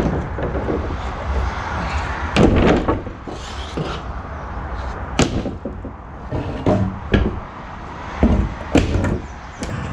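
A series of sharp knocks and thuds, about seven spread unevenly, two close together near the end, over a steady background rumble.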